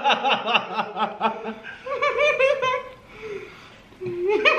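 A man laughing in a run of quick laughs, dying down about three seconds in, then picking up again near the end.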